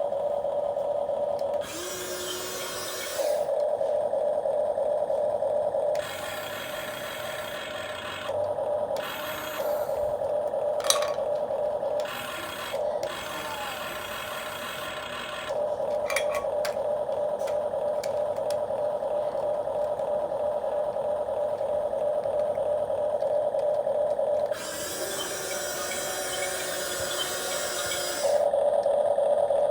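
Huina 1550 RC excavator's electric motors and gearboxes whining, starting, stopping and changing pitch every few seconds as different functions are run, with a long steady run in the second half and a few sharp clicks.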